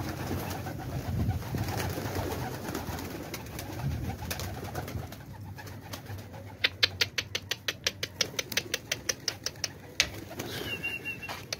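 Domestic pigeons cooing. About two-thirds of the way through comes a quick run of sharp clicks, about seven a second for some three seconds.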